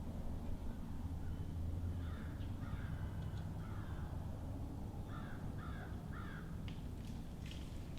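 Crows cawing: a few caws about two seconds in, then a run of three evenly spaced caws past the middle, over a steady low rumble.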